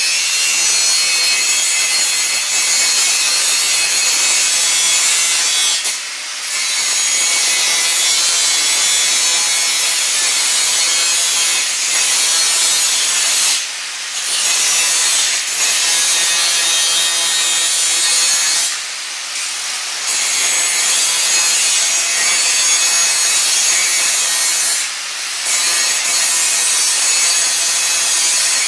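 Electric angle grinder cutting metal and wall tiling with an abrasive disc: a loud, steady grinding hiss, highest-pitched in its energy, that dips briefly about four times.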